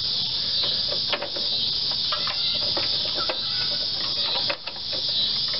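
Steady high-pitched insect chorus, with a few faint clicks and knocks of pliers and a spring clamp being worked onto a rubber fuel hose.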